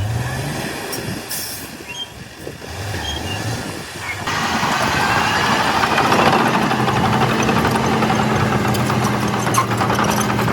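Diesel engine and steel tracks of a Shantui DH17 C2 crawler bulldozer working. About four seconds in, the sound jumps abruptly to a louder, steady engine drone over a rumble of tracks and moving soil.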